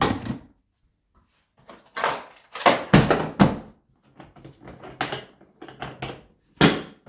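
Hard plastic toolbox parts being handled: a series of sharp knocks and clatters as the cases and lids are moved, opened and set down, with quiet gaps between them.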